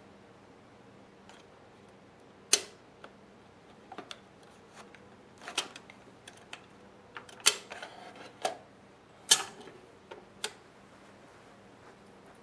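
Sharp metallic clicks and clacks from a Calumet CC-400 4x5 view camera's spring back and bail as a Polaroid 405 instant film holder is worked out from under the ground glass. There are about half a dozen distinct clacks, spread out with small ticks between them.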